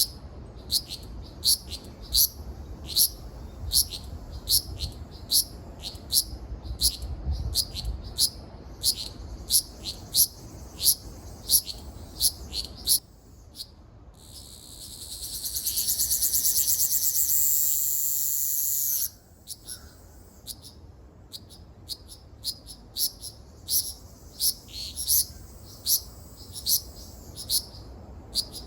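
Ryukyu large brown cicada (Graptopsaltria bimaculata) singing: about halfway through, a high pulsing buzz swells up, holds for about five seconds and cuts off suddenly. Before and after it, short high chirps repeat about twice a second.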